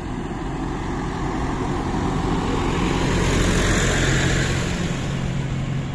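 A road vehicle passing close by: its tyre and engine noise swells to its loudest about three and a half seconds in, then fades, over a low steady engine hum.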